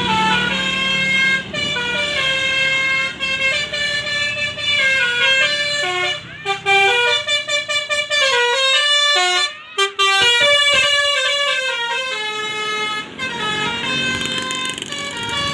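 Bus 'basuri' musical air horn playing a melody: a run of stepped horn notes, breaking into quicker short notes in the middle before longer notes return.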